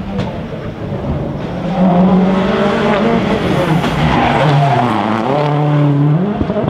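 A rally car's engine at full throttle, its pitch climbing and then dropping at each gear change. It grows louder over the first couple of seconds as the car approaches.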